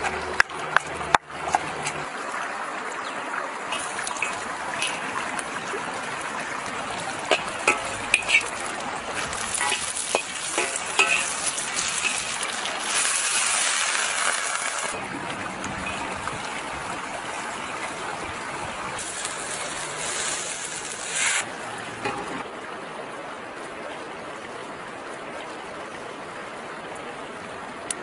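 A stone pestle knocks in a stone mortar a few times at the start. Then food sizzles in a hot wok over a wood fire, with scattered clinks and scrapes of stirring and louder stretches of sizzle around the middle.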